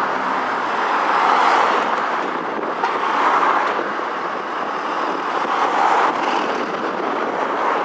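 Street traffic noise: passing road vehicles make a steady rush that swells and fades about three times, with a little wind on the microphone.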